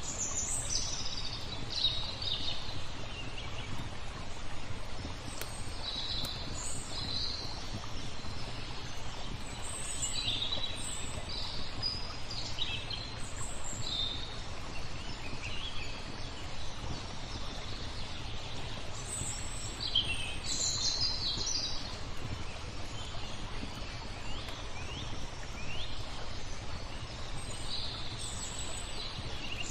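Several small songbirds chirping and twittering in quick short calls, over a steady low rumble of background noise.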